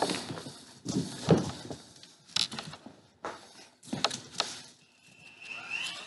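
Handling noise from a handheld camera being swung about: scattered knocks and rustles, with a short high whine near the end.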